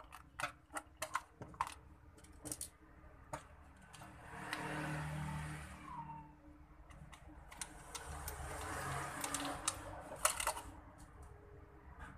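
Clicks and knocks of the plastic parts of a Rexus gaming headset being handled and snapped together during reassembly. A rushing noise swells up twice in between.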